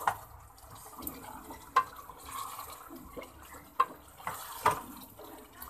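A wooden spoon stirring soft, oily tomato masala in an aluminium pot, a wet churning sound broken by several sharp knocks of the spoon against the pot.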